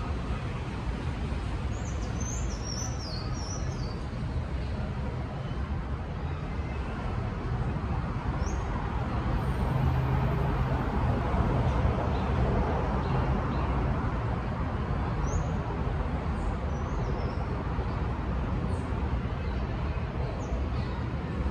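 Steady outdoor background rumble, strongest in the low end, with short high bird chirps: a quick run of them about two to four seconds in and single chirps scattered through the rest.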